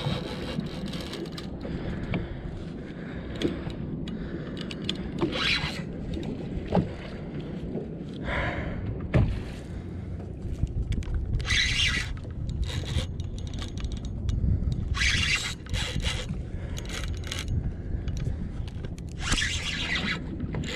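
Steady wind and water rumble on a small open boat, broken by short scraping bursts five or six times as the angler cranks and pumps a spinning reel during a long fight with a big fish.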